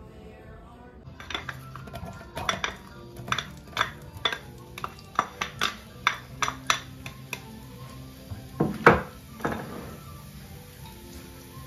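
A knife scraping and tapping chopped pieces off a wooden cutting board into an empty cooking pot: a run of sharp clicks and taps, about two or three a second, then a louder knock about nine seconds in. Soft background music plays underneath.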